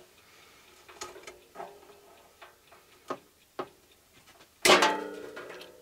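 A few light clicks and snips of pliers at a power cord. About four and a half seconds in comes a loud metallic clank that rings on for about a second as the sheet-metal back case of an old signal generator comes off.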